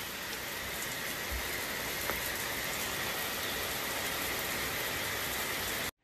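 A steady, even hiss of noise with a faint high tone in it, cutting off suddenly near the end.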